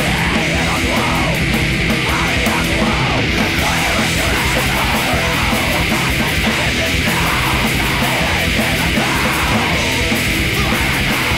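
Loud, dense distorted rock music from a post-hardcore band's album track, playing without a break.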